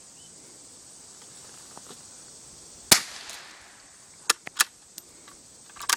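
Gunshots. One loud crack about three seconds in with a short echo, then three sharper, quieter cracks over the next three seconds.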